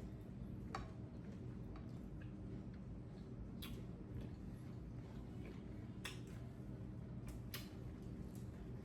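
Eating at a table: a handful of sharp, irregularly spaced clicks and snaps over a low steady hum, with the loudest pair close together near the end.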